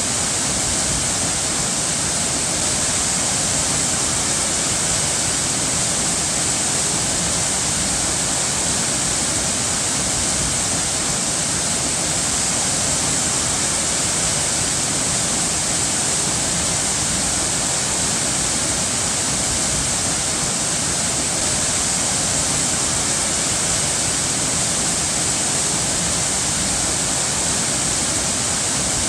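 Running water rushing steadily and evenly, an unbroken hiss with no changes.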